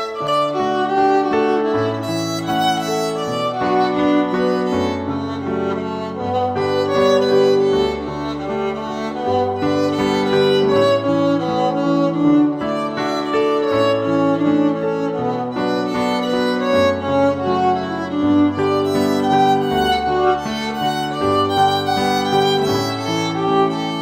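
Instrumental background music: held, sustained notes in several voices over a bass line that steps from note to note.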